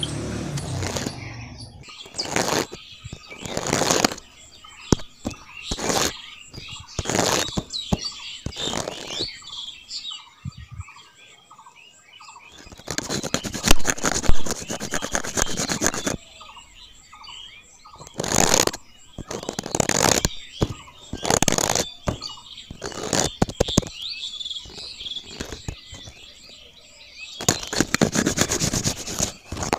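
A small metal trowel scraping and scooping dry cement powder into a small plastic bucket, and the powder being tipped into a miniature mixer drum. The rasping, gritty scrapes come in repeated strokes, some short and some lasting a couple of seconds, with quieter pauses between them.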